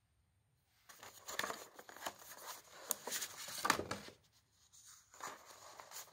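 Paper and thin card rustling and crinkling as a folded card envelope is opened and sheets of paper are pulled out and handled. It starts about a second in and is loudest over the next three seconds, with softer rustles and a sharp click near the end.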